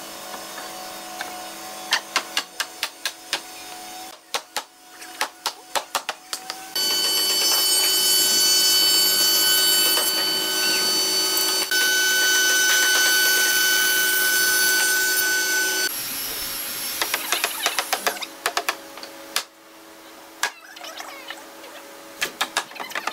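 Woodworking power tool running with a steady whine for about nine seconds in the middle, between stretches of sharp tapping and knocking on wood.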